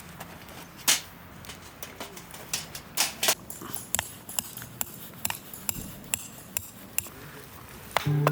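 A series of sharp, irregularly spaced clicks and knocks, the loudest about a second in and around three seconds in.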